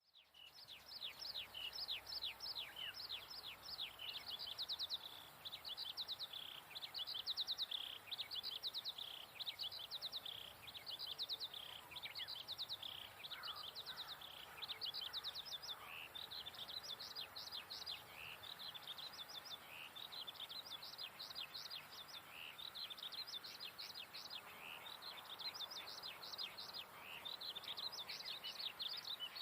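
Songbird singing near-continuously: quick trills of high, downward-sweeping notes, repeated phrase after phrase with short breaks.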